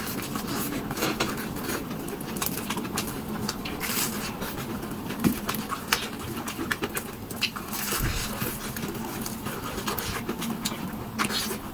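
Close-miked eating sounds: chewing, with many short clicks and crackles scattered irregularly throughout.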